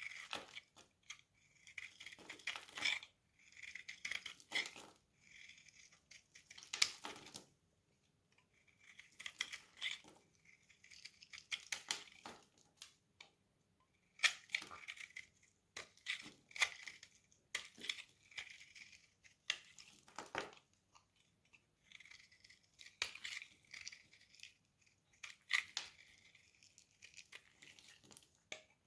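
Knife blade cutting through dry soap: repeated crisp, crumbly scraping strokes, each about a second long, with short pauses between them.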